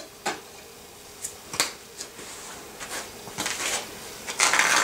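Scattered clicks and knocks of a cooking utensil and dish being handled, with a louder scraping rustle near the end.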